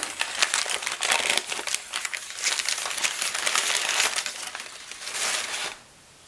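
Brown kraft paper wrapping crinkling and crackling as it is pulled off a wooden molding plane, stopping near the end.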